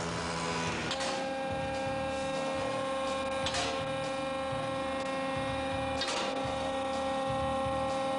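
Steady machine hum with several held tones, with a soft whoosh repeating about every two and a half seconds.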